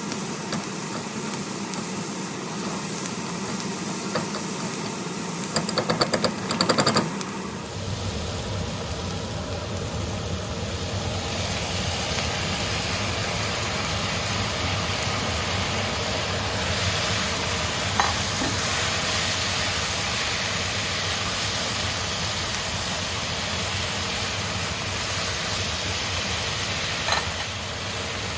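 Stir-fry sizzling in a hot pan, a steady hiss, with a quick run of sharp clattering strokes about six seconds in; from about eight seconds the sizzling grows fuller and a little louder.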